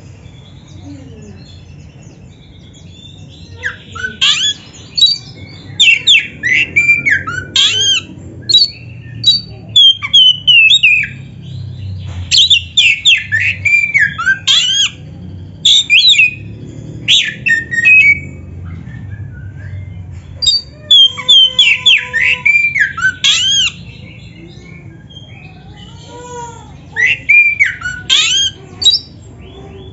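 Oriental magpie-robin (kacer) singing loud, varied phrases of rapid rising and falling whistles and sharp notes. The phrases come in runs of a few seconds, with a pause before a last short phrase near the end. A low steady hum runs underneath.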